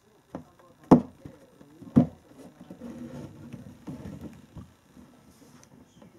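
A cat moving about inside a cardboard box under a loose lid: two sharp knocks against the box about a second apart, then a couple of seconds of scuffling as it pushes its way out under the lid.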